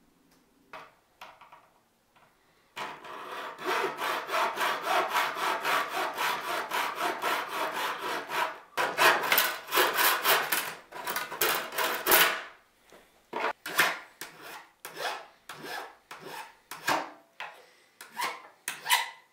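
Hacksaw cutting through an aluminium strap in quick, steady back-and-forth strokes, then, from about 13 s in, a hand file smoothing the cut end in slower, separate strokes.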